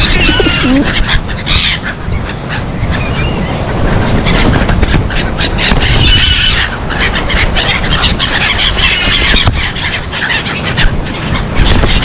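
A flock of black-headed gulls calling repeatedly as they wheel and flap close around someone feeding them, over a steady low rumble.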